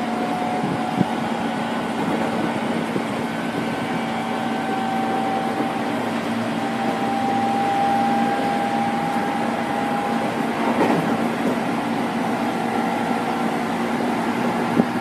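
Running sound of a 205 series 5000-subseries electric train, heard from inside the car: VVVF inverter and traction motor whine over steady wheel-on-rail noise. A higher motor tone rises slowly in pitch and fades out about ten seconds in.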